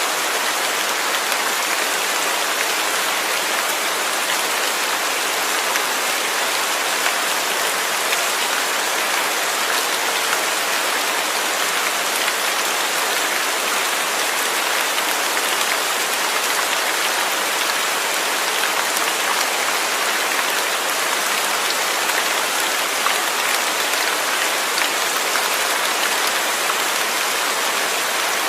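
Steady rain falling, a dense even hiss of drops hitting a surface.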